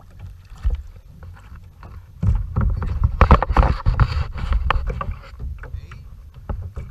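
Paddling a small kayak with a double-bladed paddle: water sloshing and splashing, with scattered knocks and clicks of the paddle and gear against the hull, loudest from about two to five seconds in.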